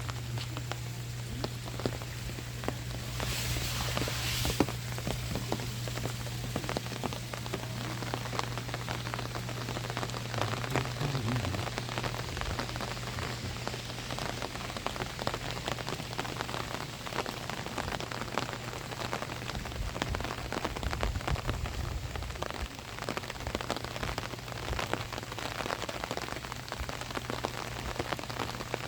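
Steady rain, with many separate drops striking an umbrella overhead. There is a steady low hum underneath, and a brief louder hiss about three seconds in.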